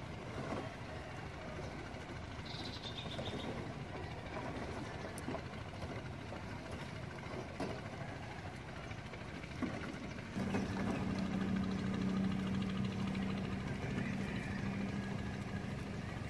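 Light water sloshing around a man wading in a river with plastic bottles, with a few small clicks. About ten seconds in, a steady low engine hum sets in at an unchanging pitch and becomes the loudest sound.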